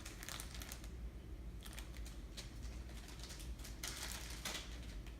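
Crinkly plastic squishy packaging being handled, rustling and crackling in irregular short bursts as the squishy is taken out of it.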